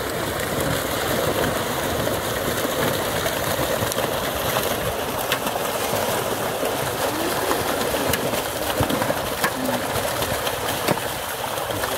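Fish thrashing in a hauled-in seine net, a steady rush of splashing water with scattered sharp slaps from about five seconds in.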